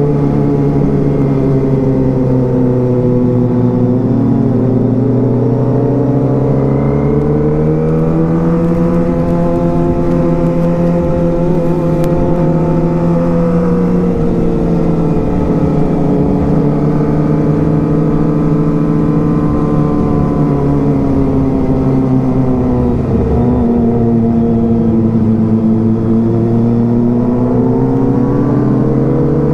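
Kawasaki ZX-25R's 250cc inline-four engine running at moderate revs under way, heard from the rider's seat. Its pitch rises and falls slowly several times as the throttle is opened and eased: up in the first third, down again around the middle, dipping once more before climbing near the end.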